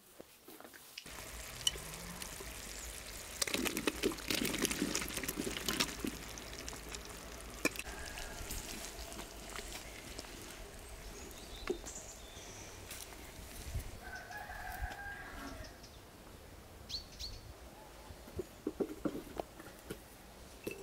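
A rooster crowing once, a little past the middle, with rustling and scattered clicks of handling in the first few seconds.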